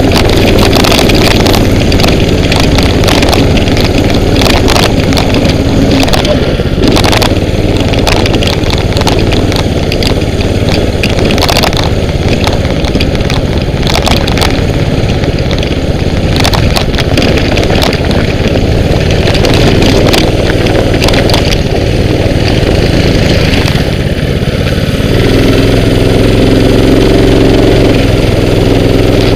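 Mini bike's small engine running hard while being ridden, close to the helmet microphone, with frequent short knocks over the engine. In the last few seconds the engine holds a steadier pitch.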